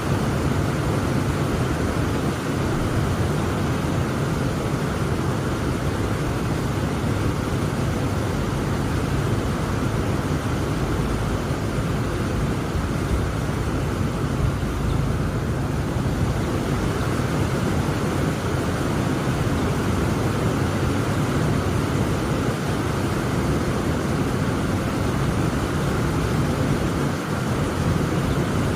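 Heavy rain falling steadily, a dense even hiss with a deep continuous rumble underneath.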